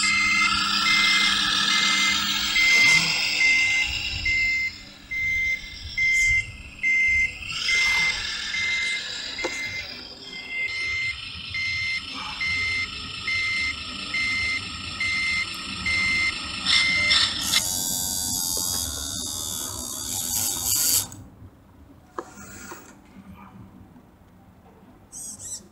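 Reversing beeper of an RC model Mercedes-Benz dump truck, a single high beep repeating evenly a little faster than once a second as the truck backs up, stopping about two-thirds of the way in. A few seconds of loud hiss follow.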